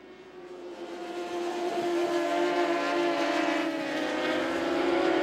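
A pack of racing superbikes running at high revs on track. The engine note grows louder over the first two seconds as the bikes approach, then holds steady and high.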